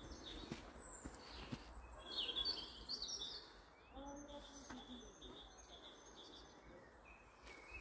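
Songbirds singing in spring woodland: high twittering phrases throughout, with the loudest burst of song about two seconds in.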